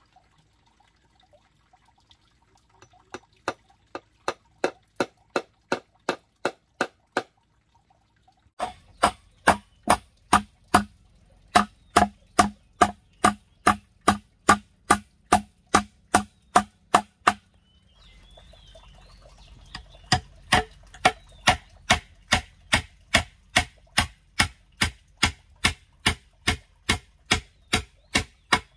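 Hammer driving nails into wooden boards: steady blows, about two or three a second, in three runs with short pauses between, as each nail goes in.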